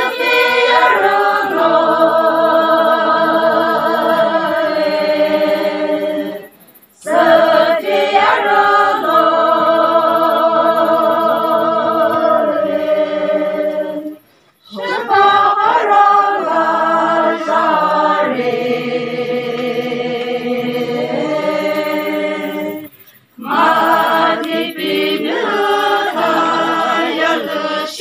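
A group of women singing unaccompanied together in long, held phrases with a wavering pitch, breaking off briefly to breathe three times.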